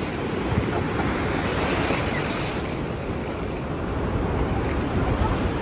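Ocean surf breaking and washing in around the shallows, a steady rushing wash, with wind buffeting the microphone.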